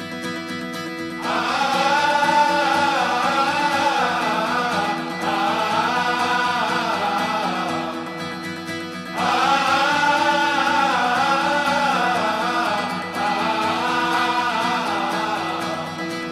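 Background music: several voices singing together in long phrases over a held low chord, starting about a second in, with a brief break around the middle.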